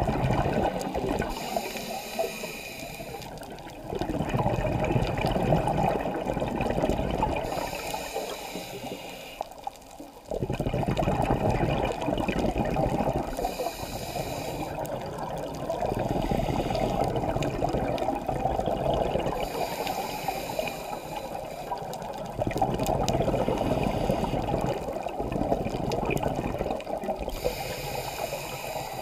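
Scuba diver breathing through a regulator, heard through an underwater camera housing: a short hiss on each inhale, then a longer rush of exhaled bubbles, repeating about every six seconds.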